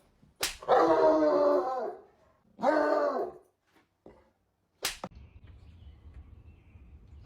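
A pet animal, taken by the tagger for a dog, gives two drawn-out calls: a long one of about a second and a half, then a shorter one that rises and falls. A sharp click comes before the first call, and another a couple of seconds after the second.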